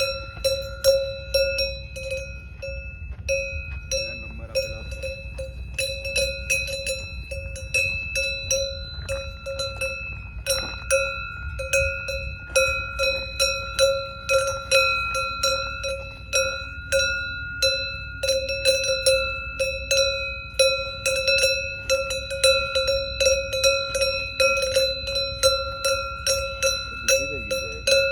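Cowbells on grazing cows clanking irregularly, several strikes a second, with one bell's ringing pitch standing out over the others.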